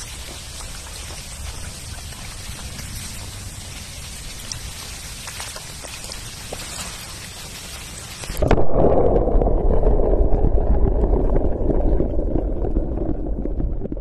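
Steady hiss of rain falling on a stream's surface, with a few faint drip ticks. About eight seconds in it cuts abruptly to a much louder, muffled rushing noise.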